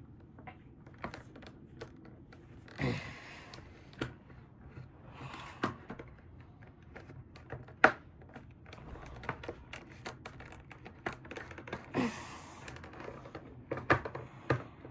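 Irregular clicks and short scrapes of a screwdriver working a stubborn screw out of a plastic power-strip housing.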